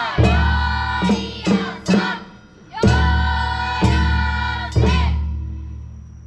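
Festival float music: heavy drum strikes roughly once a second, with a group of voices calling together in long, falling chants over the beats.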